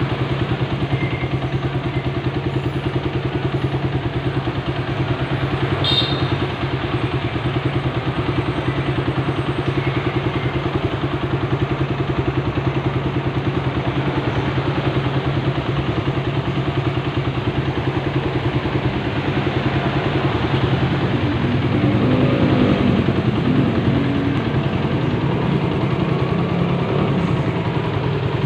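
Suzuki Satria FU 150's single-cylinder four-stroke engine idling steadily through an aftermarket exhaust, running smooth after an engine rebuild. It gets a little louder for a few seconds about two-thirds of the way through.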